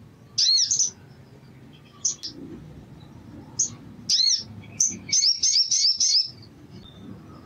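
Male olive-backed sunbird singing: sharp high-pitched chirps and short warbled notes, then about five seconds in a rapid run of chirps, roughly five a second, lasting over a second.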